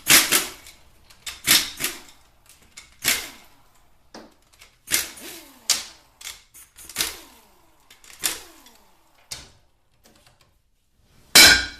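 Irregular sharp metal knocks and clanks, roughly one a second with some ringing briefly, as the extension housing is worked off a 4L60E automatic transmission. The two loudest knocks come near the end.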